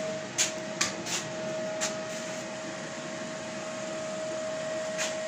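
A motor running steadily with a constant whine over a hiss, with a few sharp clicks in the first two seconds and one more near the end.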